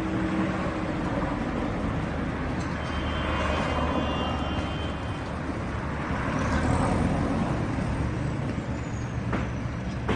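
Street traffic with heavy diesel vehicles running, a steady rumble, and a brief high-pitched squeal about three seconds in, typical of truck brakes.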